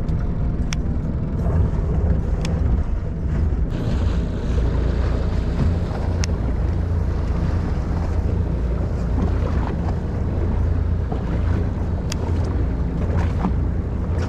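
Fishing boat's engine running with a steady low rumble, with wind on the microphone and the wash of water; a few faint sharp clicks sound now and then.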